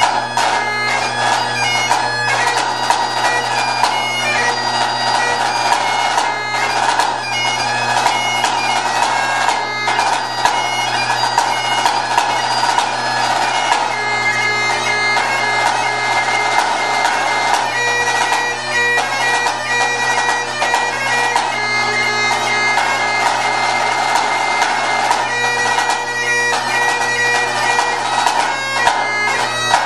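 Highland bagpipe playing a tune over its steady drones, with a pipe band snare drum played along in quick strokes.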